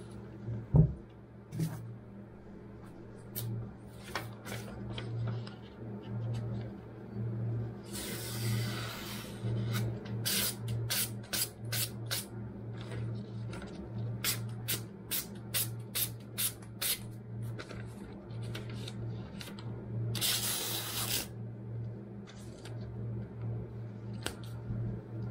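Freshly sharpened kitchen knife slicing through magazine paper in a paper-cutting sharpness test: a run of quick crisp cuts, about two a second, with longer rustling slices and paper handling before and after. A steady low hum sits underneath, and there is a single thump about a second in.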